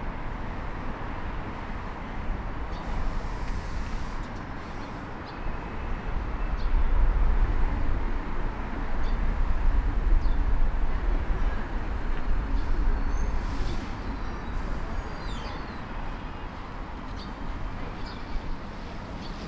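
City street ambience with a steady rumble of road traffic that swells about six seconds in and eases off after about twelve seconds. A few short, faint high-pitched tones come near the end.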